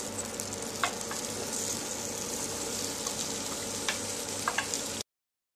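Cut capsicum and onion sizzling in hot sunflower oil, a steady frying hiss with a few light clicks. The sound stops dead about five seconds in.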